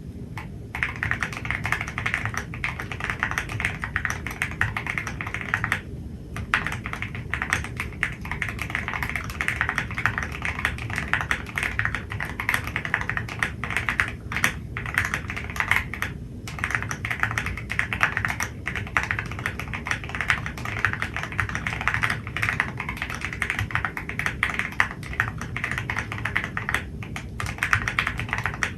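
Mechanical keyboard typing on stock Everglide Water King v3 linear switches in a Fuji75 with a carbon plate and PE foam: fast, continuous keystrokes with a deep tone, broken by a few brief pauses.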